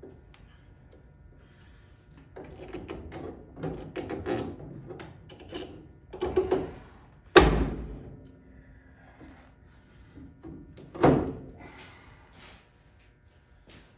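Workshop handling noises: parts and tools rattling and scraping, then two loud clunks, one about halfway through and another about four seconds later, each with a short ring.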